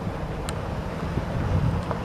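Wind buffeting the microphone: a gusty low rumble, with a faint click about half a second in.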